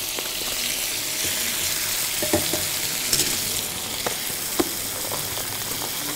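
Oil-confited boletus mushrooms sizzling steadily in a hot frying pan with sautéed onion, stirred with a spatula. A few sharp clicks come through the sizzle in the middle.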